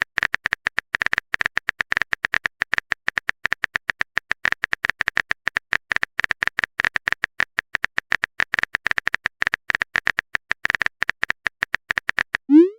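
Phone-keyboard typing sound effect: a long run of rapid, irregular key clicks. Near the end a short rising swoosh, like a message being sent.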